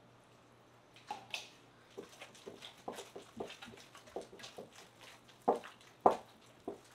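Gloved hands squeezing and mixing wet sour cassava-starch dough in a bowl as water is worked in: a run of irregular wet squelches and slaps, the loudest two about five and a half and six seconds in.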